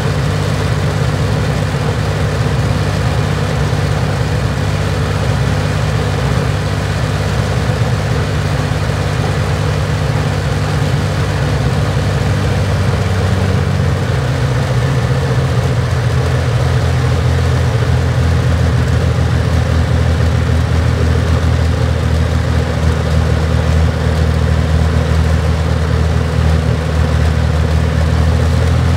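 Rolls-Royce Merlin XX V12 aero engine running steadily on a ground test rig, exhausting through its saxophone-style exhaust stacks. About halfway through, its note shifts as the engine speed is changed and it grows slightly louder.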